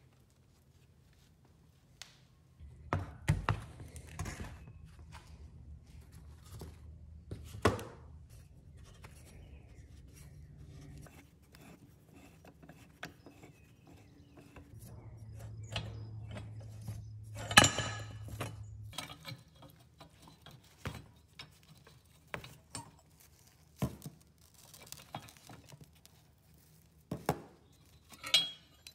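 Irregular knocks, taps and clinks of hard objects being handled, with a low hum that comes and goes twice; the loudest clink is about two-thirds of the way through.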